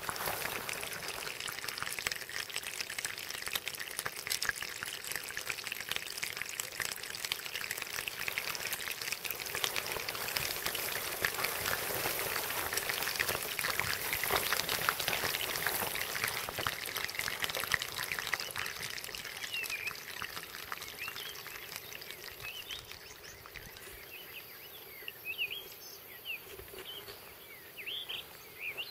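Dense crackling and rustling of dry reeds and scrub brushing against legs and clothing as several people walk single file along a narrow path through them. It fades after about two-thirds of the way through, and short high chirps come through near the end.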